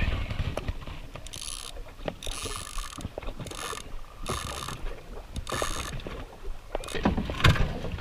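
A fishing reel being cranked in about five short bursts, each about half a second long, with low handling knocks and a louder thump near the end.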